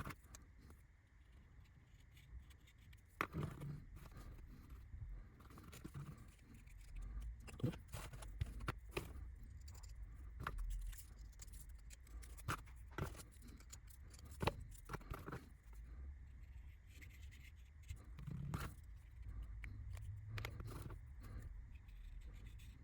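Scattered light clicks, taps and short scrapes of small laser-cut wooden door parts being worked and handled on a bench.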